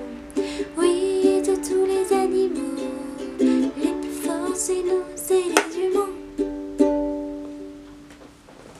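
Ukulele playing chords with no singing; the playing stops and the last chord rings out and fades near the end.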